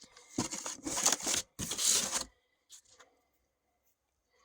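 Rustling and scraping of firework packaging being handled, in three or four short bursts over the first two seconds, then quiet.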